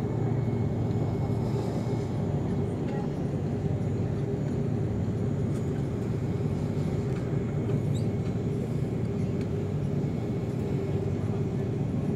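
Steady cabin noise of an Airbus A330 taxiing, its engines at idle: an even low rumble with a held hum above it.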